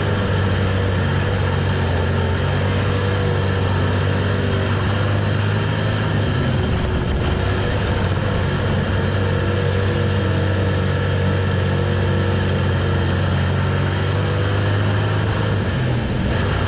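Dirt-track street stock race car's V8 engine running hard at racing speed, heard from inside the cockpit along with tire and track noise. It eases off briefly about six to seven seconds in, then pulls hard again.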